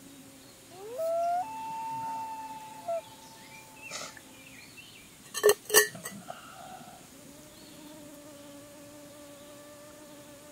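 A common loon's wail: a note that swoops upward, then holds one long steady tone for about two and a half seconds. A fly buzzes close by on and off, and two sharp knocks come a little after the middle.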